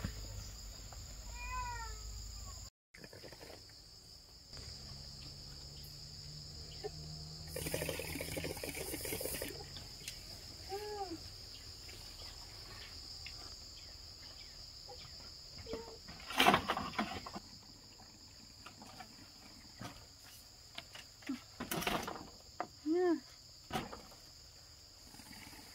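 A steady high-pitched insect chorus of crickets or cicadas, with a few short rising-and-falling calls and scattered knocks and rustles over it.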